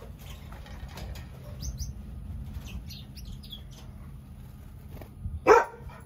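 Small aviary birds, rosy bourke parakeets and Gouldian finches, giving a few faint high chirps, with one short loud call near the end that stands out above everything else.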